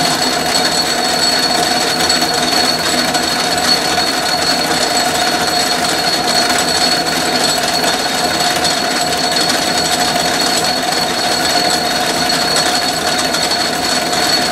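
Atlas metal lathe running with its spindle turning: a steady mechanical whir from the motor and drive, with a constant high whine over it.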